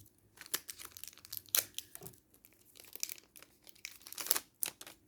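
Crinkling and tearing of a Pokémon card booster pack's foil wrapper as it is opened, in a string of irregular crackles with louder rips about a second and a half in and near the end.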